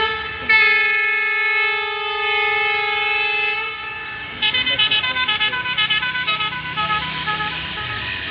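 Train horn sounding one long, steady blast of about three and a half seconds, with a brief break just after it starts. About four and a half seconds in, music with quick, short notes at changing pitches takes over.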